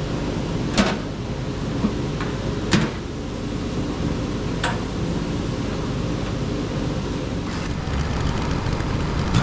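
WoodMizer LT35 sawmill's engine running steadily, with four short sharp knocks in the first five seconds.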